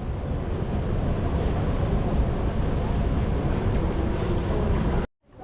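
Steady roar of the Rhine Falls' rushing water, with wind buffeting the microphone. It cuts off abruptly near the end and starts again, building up.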